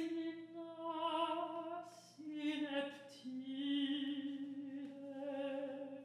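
Operatic soprano voice singing a slow phrase of three long held notes with vibrato, each a little lower than the last. No other instrument is clearly heard.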